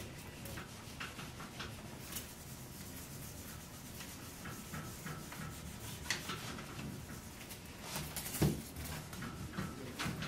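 Handheld dry-erase eraser rubbing across a whiteboard in a string of short back-and-forth strokes, with a louder knock about eight and a half seconds in.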